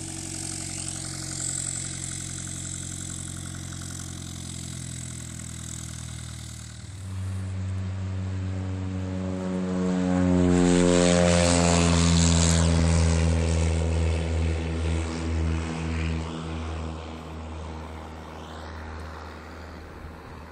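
Diamond DA40 single-engine light aircraft: its engine and propeller run steadily at low power, then open up sharply to takeoff power about seven seconds in. The sound is loudest a few seconds later, then falls in pitch and fades as the plane climbs away.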